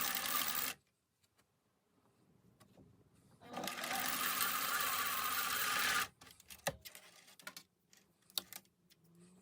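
Electric sewing machine stitching in two short runs: one that stops under a second in, and another of about two and a half seconds in the middle, followed by a few scattered clicks and taps.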